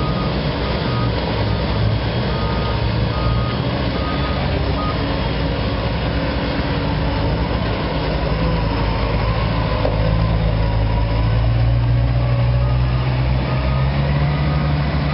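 Diesel engines of a Thwaites site dumper and a Hyundai excavator working steadily in a soil pit. The engine noise swells for a few seconds as the loaded dumper drives close. A reversing alarm beeps in short repeated tones, about two a second, over the first few seconds and again near the end.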